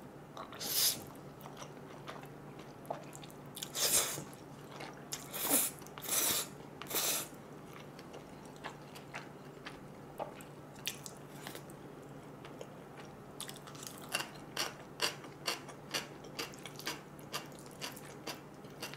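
Close-miked eating of jajangmyeon noodles: five loud slurps in the first seven seconds, then steady, wet chewing at about two chews a second through the second half, over a faint steady low hum.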